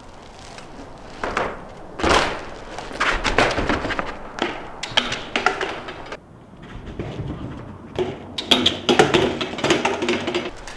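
A BMX bike knocking and thumping on a flat rooftop as it is ridden and handled, a string of irregular knocks and clatters.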